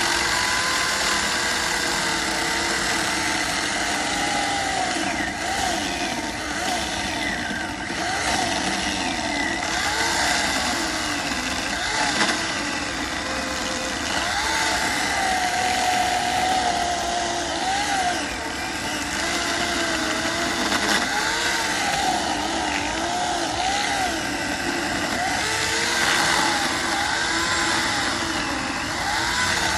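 Electric chainsaw running and cutting wood, its motor pitch wavering up and down under load.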